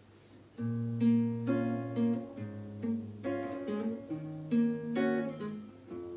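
Acoustic guitar playing the instrumental intro to a song: plucked chords with a moving bass line, starting about half a second in.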